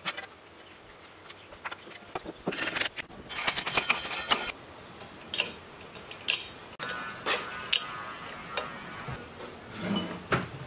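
Clicks, taps and knocks of metal parts being handled and fastened on a single-phase-converted electric motor on a wooden bench, with a run of rapid clicking a few seconds in and finer fast ticking later. It ends on a heavier knock as the motor is shifted on the bench.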